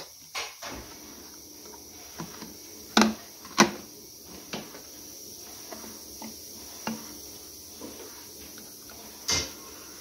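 Scattered knocks and clicks as a freshly moulded plastic lota is handled and trimmed by hand, the loudest two close together about three seconds in and another near the end, over a steady faint hiss.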